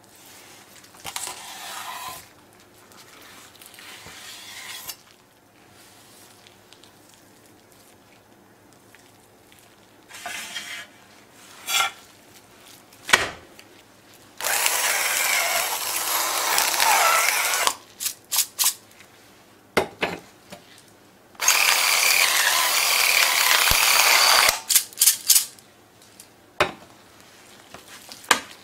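Electric spice mill grinding in two bursts of about three seconds each, seasoning raw chicken with salt and then pepper, with a few sharp clicks after each burst. Near the start there is softer scraping as a knife slices raw chicken on a wooden cutting board.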